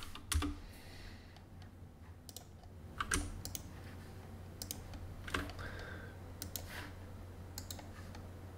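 Scattered clicks of a computer mouse and keyboard, single and in pairs about once a second, over a low steady hum.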